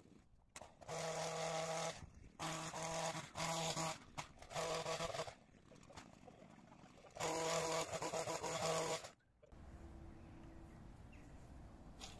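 Long-reach pole hedge trimmer running at full speed in repeated bursts, cutting across the top of a hedge. The trigger is squeezed six times for half a second to two seconds each, and the trimmer eases off about nine seconds in.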